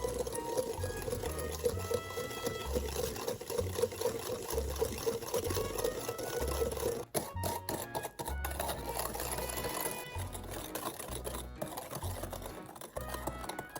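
A small motor runs steadily for about six and a half seconds, then stops, under background music with a steady beat.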